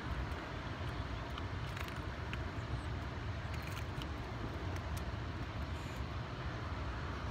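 Steady wind rumble buffeting the microphone, with a few faint clicks scattered through it.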